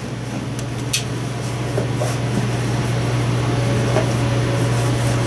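Steady low mechanical hum, like a fan or other running machine in the background, with a short click about a second in and a few faint ticks.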